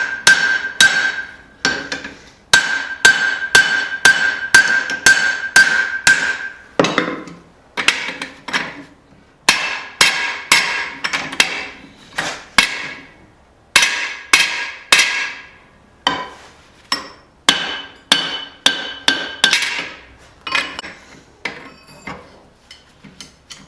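Blacksmith's hand hammer striking hot steel on an anvil, in runs of about three blows a second with short pauses, the anvil ringing under the blows. The strikes are working a drift into the eye of a forged hammer head, and they turn lighter and fainter near the end.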